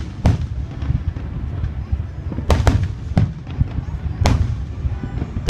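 Aerial firework shells bursting: about five sharp booms, two of them close together about two and a half seconds in, over a continuous low rumble.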